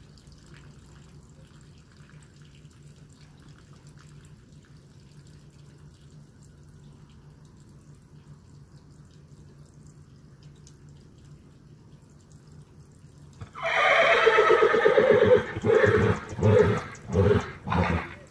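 A paint horse whinnying loudly: one long call of about two seconds that breaks into four shorter pulses. It is a horse calling out for a companion horse that has died.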